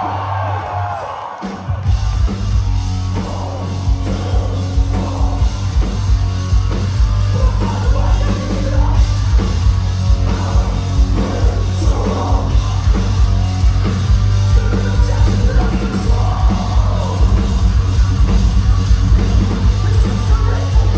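Metalcore band playing live through a club PA: heavy down-tuned guitars, bass and drums with screamed vocals. The full band comes in about two seconds in after a brief thinner passage.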